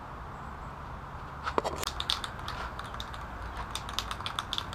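A run of light, irregular metallic clicks and clinks, about four or five a second, starting about a second and a half in: small metal parts knocking together.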